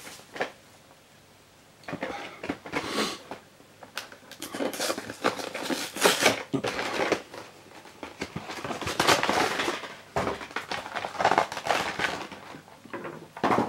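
Plastic wrap and cardboard packaging of a Pokémon card collection box rustling and crinkling in irregular bursts as it is opened and unpacked, with light clicks and taps. Quiet for about the first two seconds before the handling starts.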